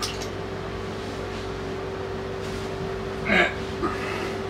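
A man's short surprised vocal sound, like a gasp, about three seconds in, followed by a smaller one, over a steady low hum.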